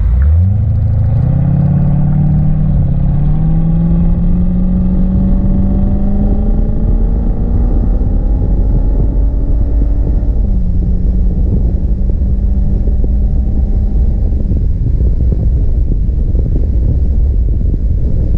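C4 Corvette V8 pulling hard from low revs. The engine note climbs quickly, dips briefly about two and a half seconds in, then rises slowly until about ten seconds in, when it drops suddenly and holds steady. Around fourteen seconds in the engine tone fades under a heavy low rumble of road and wind noise.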